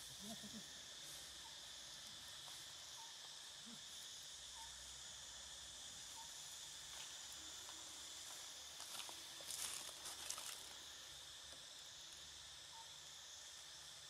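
Faint, steady chorus of forest insects, a continuous high buzz. About two thirds of the way through, a brief burst of rustling and crackling, the loudest moment.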